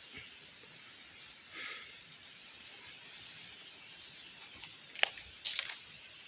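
Steady hiss of a flowing creek, with a sharp click about five seconds in and a quick cluster of clicks and rustles just after.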